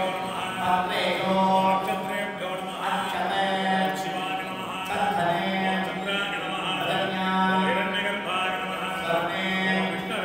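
Male voices chanting Sanskrit Hindu ritual mantras, each phrase held on a steady pitch and breaking every few seconds.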